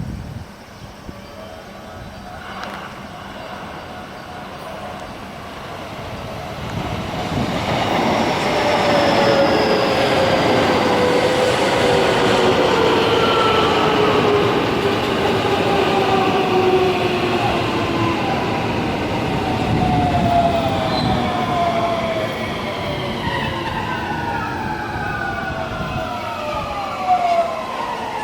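JR West electric train pulling into the station, its wheels rumbling louder as it draws near and its motor whine falling slowly in pitch as it brakes.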